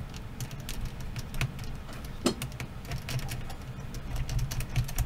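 Light, irregular clicks and taps of fingers handling a laptop's plastic chassis and small parts, over a low steady hum.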